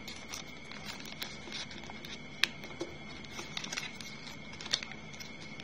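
Origami paper crinkling and crackling as it is folded and creased by hand, with small irregular clicks and a sharper snap about two and a half seconds in and again near the end. A faint steady high tone runs underneath.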